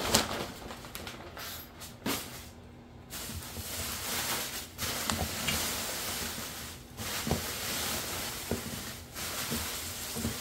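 Bubble wrap and plastic packaging rustling and crinkling as it is handled, with a few sharp knocks, the loudest right at the start.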